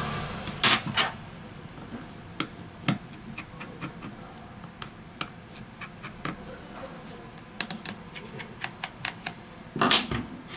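Light, irregular clicks and ticks of a precision screwdriver and tweezers working the small screws out of a smartphone's midframe, with screws set down on a silicone mat. A few louder clicks come about a second in and near the end.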